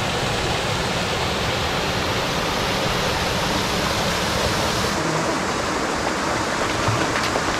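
Waterfall's rushing water, a steady, even roar of falling water close by. The hiss in the highest range thins a little about five seconds in.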